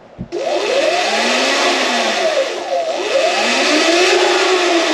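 Sur-Ron electric dirt bike's motor whining, its pitch rising and falling about three times as the throttle is worked, over a loud steady rushing noise.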